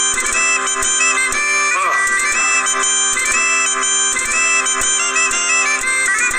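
Bagpipe music: steady drones held underneath a chanter melody that moves in short notes.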